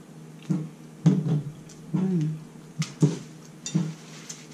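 A woman's short wordless vocal sounds, about six in a row with one rising in pitch about two seconds in, as she reacts to the burn of extra-spicy hot sauce.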